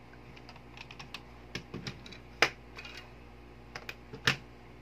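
Light, irregular clicks and taps of the plastic and metal parts of a disassembled spring airsoft pistol being handled and put down on a tabletop, with two sharper knocks, one about halfway through and one near the end.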